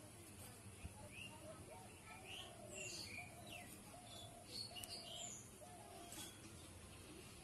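Faint birds calling in the background: scattered short, high chirps that sweep up and down, and in the middle a run of about seven short, even, lower notes.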